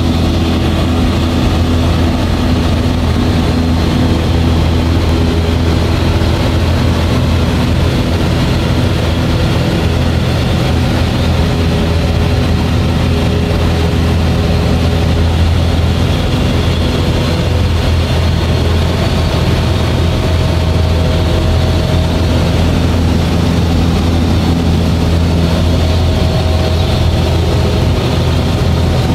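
Single piston engine and propeller of a small high-wing light aircraft running steadily in level flight, heard from inside the cockpit as an unchanging loud hum with a strong low note.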